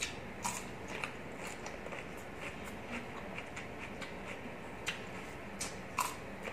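Crunchy bites and chewing of raw cucumber close to the microphone, with sharp crisp crunches a couple of times early on and a loud pair near the end.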